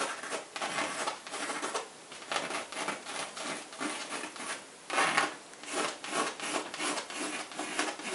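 Pencil scratching on a stretched canvas in short repeated sketching strokes, with one louder stroke about five seconds in.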